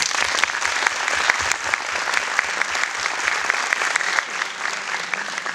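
Audience applauding: dense clapping that starts suddenly and thins out near the end.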